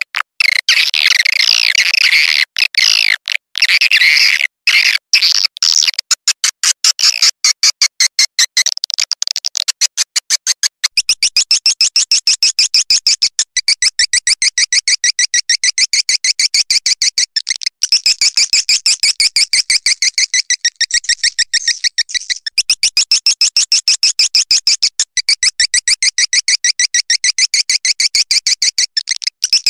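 Swiftlet call recording of the kind played to lure edible-nest swiftlets: rapid, high-pitched chirping trills repeated many times a second, changing to a denser, two-pitched call pattern about eleven seconds in.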